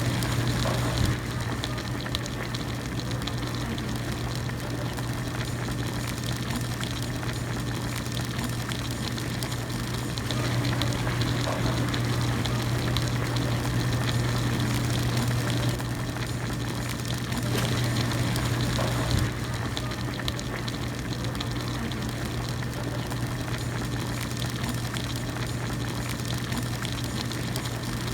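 Hot pot broth boiling continuously: a steady bubbling with a low, even hum underneath.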